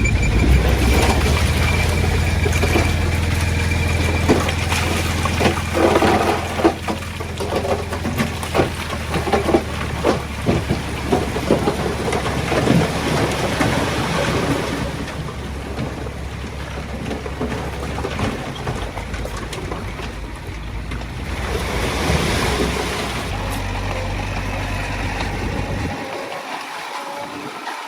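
Komatsu D20A bulldozer's diesel engine running under load, with a run of knocks and clatter from stone between about five and fourteen seconds in.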